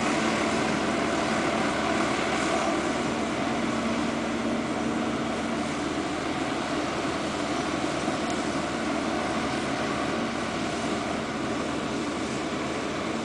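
Tracked excavator's diesel engine running with a steady drone; a humming tone in it drops out about six seconds in.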